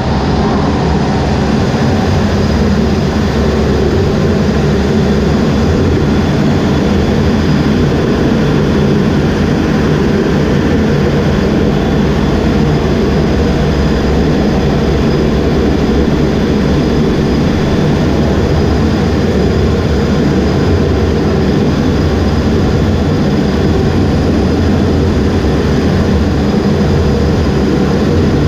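EA-18G Growler's jet engines running on a carrier deck, heard from inside the cockpit: a steady, loud rumble with a faint high whine on top.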